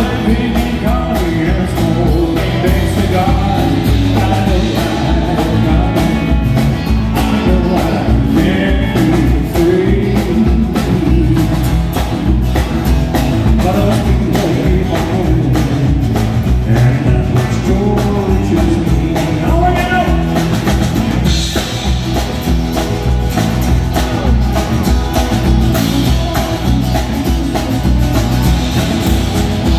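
A live country band playing through a PA: a male singer's vocals over acoustic and electric guitars and drums with a steady beat.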